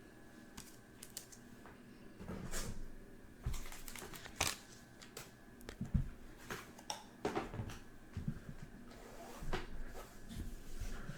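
Scattered, irregular clicks, taps and soft knocks of small objects being handled on a desk, with no steady rhythm.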